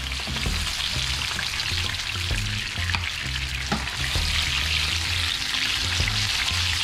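Hot oil sizzling steadily in a frying pan of fish, with a few sharp clicks of a utensil. Background music with a steady bass plays underneath.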